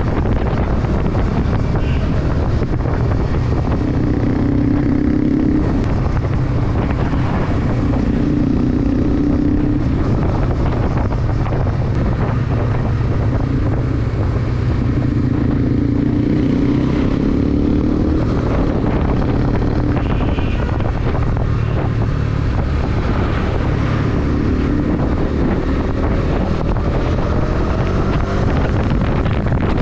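Motorcycle engine running at road speed, its pitch shifting with the throttle and climbing near the end as it revs up, with wind buffeting the microphone.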